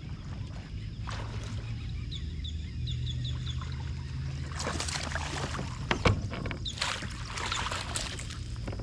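Water splashing and sloshing beside a kayak as a hooked bass is brought in, with a sharp knock about six seconds in.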